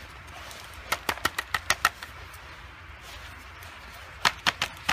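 Plastic body of a palm sander being handled and turned over on a wooden workbench: a quick run of about seven sharp clicks and knocks about a second in, and another short cluster near the end.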